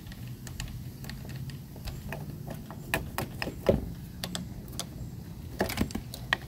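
Irregular small metallic clicks and clinks of a loosened negative battery-cable clamp being wiggled and lifted off its battery post, with a few louder clinks partway through and again near the end.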